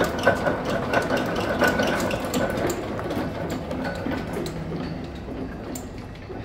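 A machine running with a rhythmic mechanical clatter of about three clicks a second, fading gradually.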